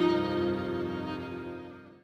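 Slow background music of sustained bowed-string tones, fading out steadily to silence by the end.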